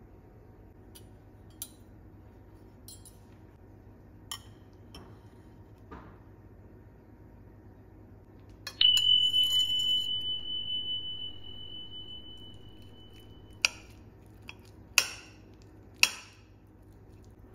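A fork and knife clinking against a ceramic plate: a few light taps, then about nine seconds in a sharp clink that rings on in one clear high tone, fading over about five seconds. Three more sharp clinks come near the end.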